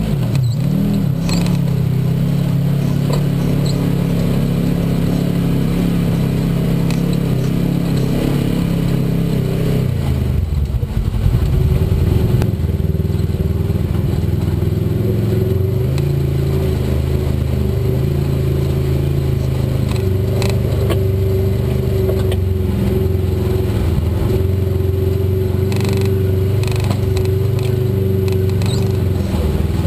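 Off-road vehicle's engine running steadily at low speed as it crawls along a rocky trail. The engine note shifts about ten seconds in. Scattered knocks and clatter come from the tyres and chassis on the rocks, most clearly later on.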